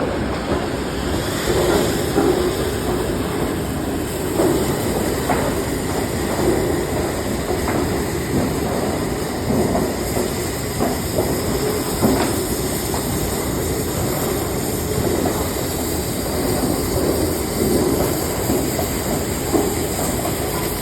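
Metal-cutting machine running steadily, with short knocks every second or two.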